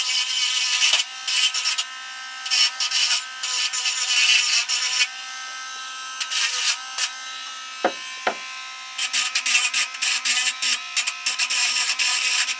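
Tiny hand-held electric rotary grinder, Dremel-type, running with a steady whine. It grinds in short, repeated bursts, cleaning corrosion off the coil-wire connection of an aluminium antenna trap. The grinding pauses for a few seconds in the middle, with two brief taps about eight seconds in, then resumes.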